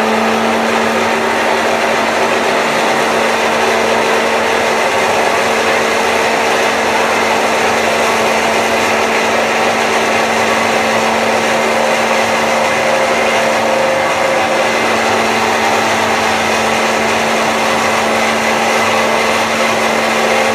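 Countertop electric blender running steadily at full speed with a constant motor hum, blending mint, coriander, green chillies and yogurt with water into a chutney.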